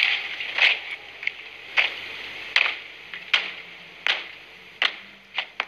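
A slow, steady marching cadence of sharp beats, about one every three-quarters of a second, from ceremonial troops marching in step.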